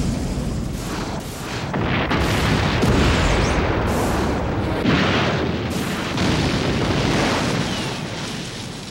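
Animated film's sound-effect explosions: a string of booms over a continuous rumble, dying away near the end.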